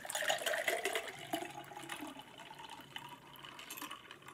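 Lemonade poured from a paper fountain-drink cup into a glass beer mug, splashing as the mug fills. The pour is loudest in the first second and a half, then eases off.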